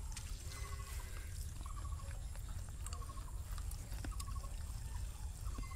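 Outdoor eating ambience: a steady low rumble of wind on the microphone, with soft wet sounds of hands mixing rice and curry on banana leaves. A few faint short chirps come through it.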